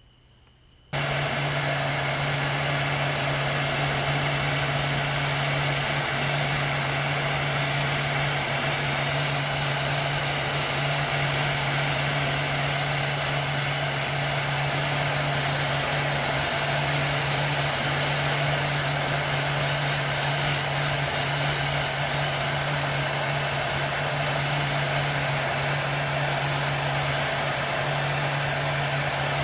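Electric hot-air blower switched on about a second in, then running steadily with a rushing blow and a low motor hum while it heats heat-shrink tubing over wire connectors.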